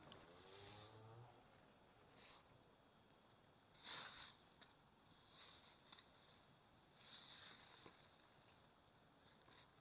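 An insect chirping in the grass: a steady, high-pitched, evenly pulsed song. Several brief rustles of tall grass come over it, the loudest about four seconds in.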